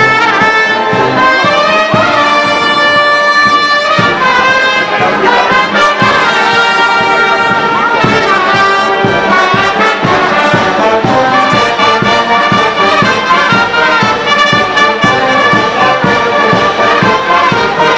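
Brass band playing loud, steady music of long held notes that change every second or two.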